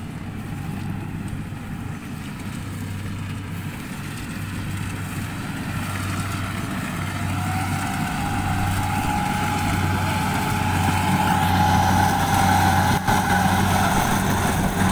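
Kubota combine harvester running as it cuts rice, a steady engine hum that grows louder as the machine comes closer, with a higher whine joining in about halfway through.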